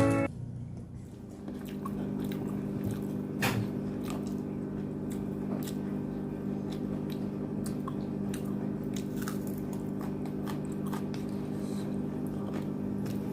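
Close-up chewing and biting of tandoori chicken: wet mouth sounds with scattered sharp clicks and crunches. A steady low hum runs underneath.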